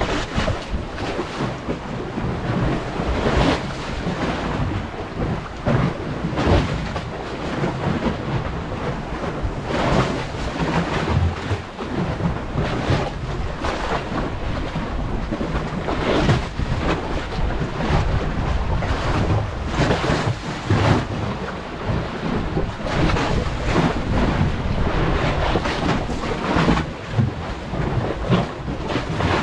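Strong wind buffeting the microphone in irregular gusts, with a heavy low rumble, over the wash of waves against a seawall.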